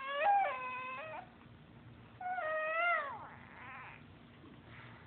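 Baby girl's high-pitched squeals, twice: the first lasts about a second, and the second comes about two seconds in and ends with a downward slide in pitch.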